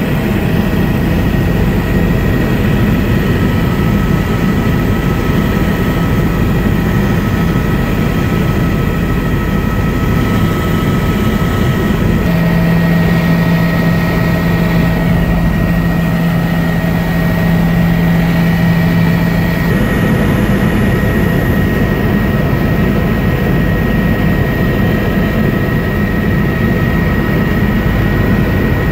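Helicopter in flight, heard from inside the cabin: a loud, steady drone of engine and rotor noise with a thin, steady high whine. Partway through, a low steady hum joins in for about seven seconds, then stops.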